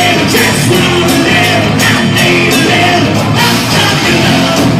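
Live rock band playing loudly, with singing.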